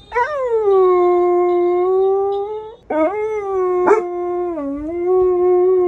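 Dog howling: two long howls, each swooping up at the start and then held at a steady pitch, the second beginning about three seconds in.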